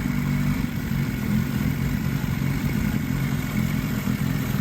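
Toyota 22R four-cylinder engine idling steadily, an engine the owner says has a vacuum leak somewhere.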